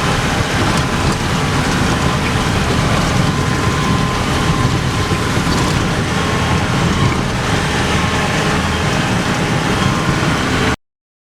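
Vehicle driving on a rough mountain road: steady engine and road noise with small clicks and rattles, cutting off suddenly near the end.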